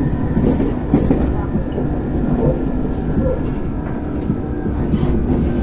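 RER B commuter train running, heard from aboard: a continuous rumble of the wheels on the track, with steady tones from the traction equipment and a few light clicks.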